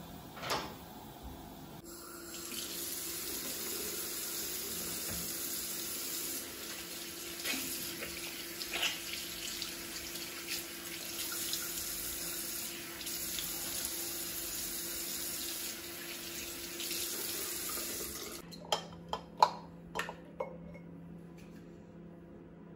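Bathroom sink tap running steadily while water is splashed onto the face with the hands. The water stops about three quarters of the way through, followed by a few sharp clicks and knocks.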